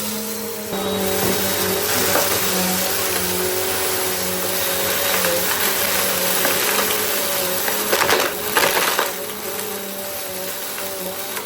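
Bissell CleanView compact vacuum cleaner running steadily, its motor humming under a rush of air. About eight seconds in comes a short burst of rattling clicks as debris is sucked up.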